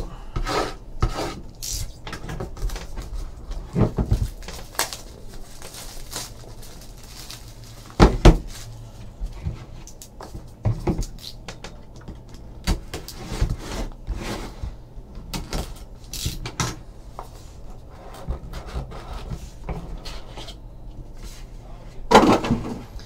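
A sealed trading-card box being opened by hand: a box cutter slitting its plastic wrap, crinkling plastic, and the cardboard box tapped and shifted on a table. A few louder knocks stand out, one about eight seconds in and another near the end.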